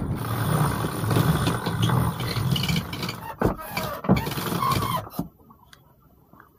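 Wind and water noise aboard a sailing yacht, with a sheet winch being cranked by hand: fine clicking and a couple of sharp knocks. About five seconds in, the noise drops away suddenly to a faint background.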